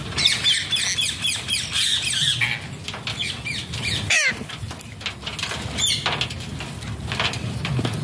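Flock of Alexandrine parakeets calling: fast runs of short, falling, high squawks for the first two and a half seconds, then scattered single calls, with wing flapping and rustling.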